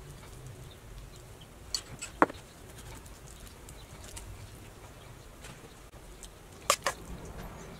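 Metal fork scraping out roasted butternut squash on a metal baking sheet, with soft scraping and a few sharp clicks: a cluster about two seconds in and a pair near the end.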